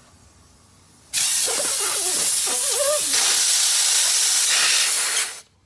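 Compressed air hissing through an air hose and quick-air fitting, loud and even. It starts suddenly about a second in and cuts off about four seconds later, with a wavering whistle in its first half.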